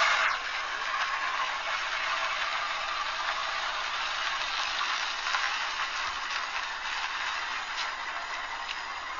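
Steady street noise: a continuous hiss with a few faint scattered clicks and rattles.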